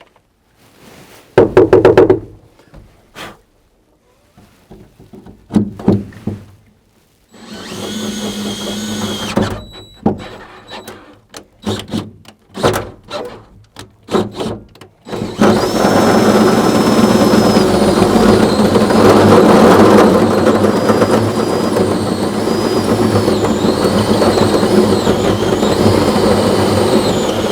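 Power drill boring a hole through a pickup truck bed. Short bursts of drilling and a few knocks come first, then about twelve seconds of steady, loud drilling that stops near the end as the hole is finished.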